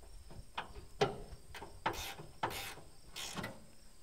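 Socket ratchet wrench clicking in a run of irregular strokes, with a few longer rasping strokes past the middle, as a rusty strut bolt in a 1956 Willys CJ-5's engine bay is undone.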